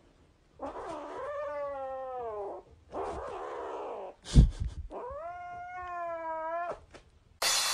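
Grey kitten giving two long, drawn-out yowls, each rising then sliding down, while guarding its plush toy from a reaching hand: a protective warning. A short thump comes between the yowls.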